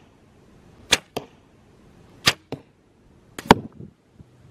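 Compound bow shot three times, each release snap followed a fraction of a second later by the arrow striking an archery block target; the third hit lands with a heavier thud.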